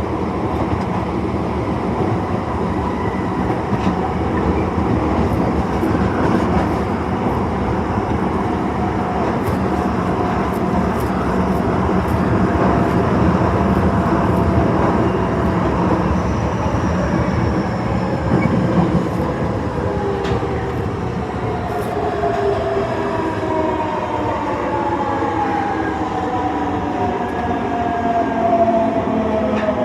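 Tanimachi Line 22 series subway car 22618 running, with a steady rumble of wheels on rail. From about halfway through, several motor tones whine and slide steadily down in pitch as the train slows. The uploader calls the car's sound shrill.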